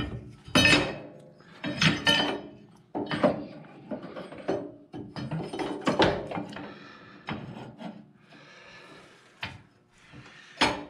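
Metal parts scraping, rubbing and clinking in short irregular bursts, handled by hand while a part is worked through a hole in a garden tractor's drive assembly.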